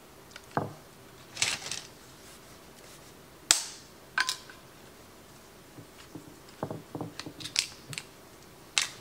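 Dry no-boil lasagna noodles being snapped and laid into a glass baking dish: a few scattered sharp cracks and clicks, the sharpest about three and a half seconds in.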